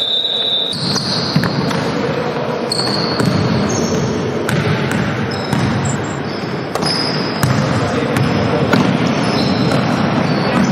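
A basketball being dribbled on a wooden gym floor, with repeated sharp bounces, over players' and onlookers' voices in a large sports hall.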